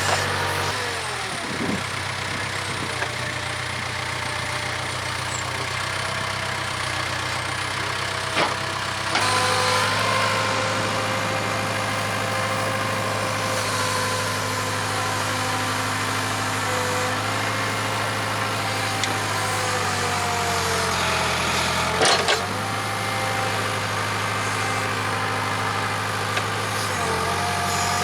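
Case 580K backhoe's diesel engine running steadily while digging, its note dropping and picking back up several times as the hydraulics take load, with a whine that glides in pitch. There are a few sharp knocks, the loudest about 22 seconds in.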